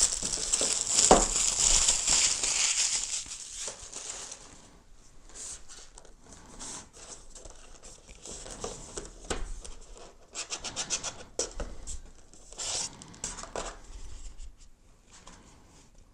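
Cardboard box and plastic packaging being handled and opened. A loud sliding, scraping rustle lasts the first few seconds, with a knock about a second in, then quieter scattered rustles and clicks.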